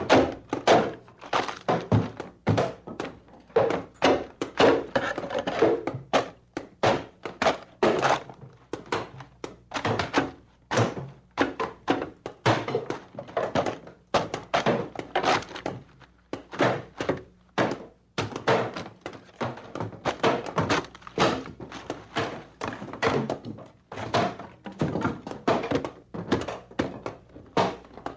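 Wooden structure being demolished: an uneven run of heavy blows on wood, about one to three a second, some with cracking and breaking after the strike.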